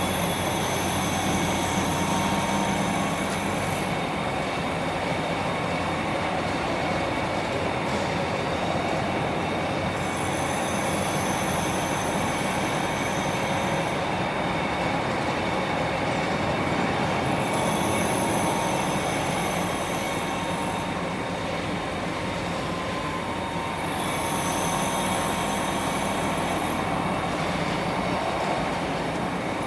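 Lathe running with its gear train engaged: a steady dense mechanical noise with a constant gear whine. A higher shrill sound comes and goes every six or seven seconds.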